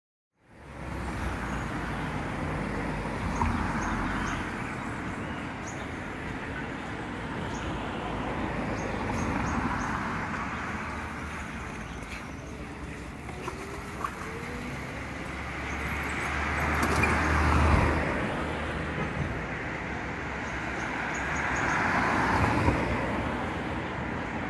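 Road traffic: a steady rush of tyre and engine noise, with vehicles passing one after another, each swelling and fading every five or six seconds.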